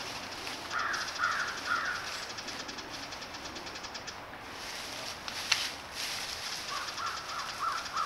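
Crow cawing: three harsh caws about a second in, then four more near the end. A single sharp click in between, over a steady hiss.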